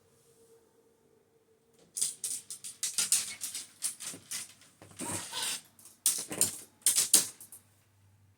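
Fishing tackle being handled: a string of quick clicks and rattles from a rod and reel being moved and worked, starting about two seconds in and stopping shortly before the end.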